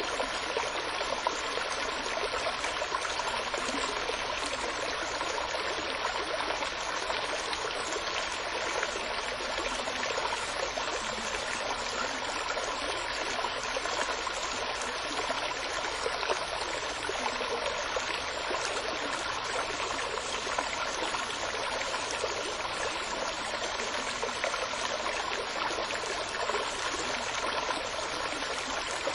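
Running water of a stream or brook, a steady even babbling and trickling.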